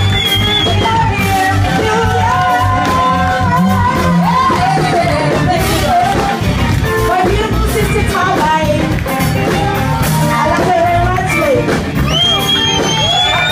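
Live band music with women singing over a steady bass and drum beat.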